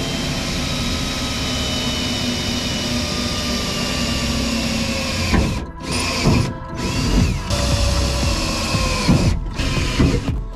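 Cordless drill running steadily for about five seconds as it pre-drills a pilot hole through the van's sheet-metal wall. Then come several shorter runs with brief stops, the motor winding down in pitch at the ends.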